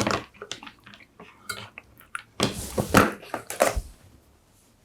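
Irregular small clicks, taps and rustles of close-up handling of tools and small parts at a workbench, with a denser run of crackling taps past the middle.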